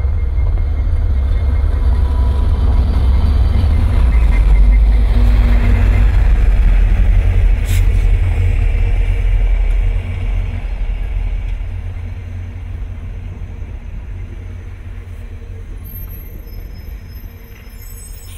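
VIA Rail passenger train passing close by. The diesel locomotives' heavy low rumble builds and drops off sharply about ten seconds in as they go past. Then the stainless steel passenger cars roll by, with a lighter rumble that slowly fades. A single sharp click comes just before the locomotives pass.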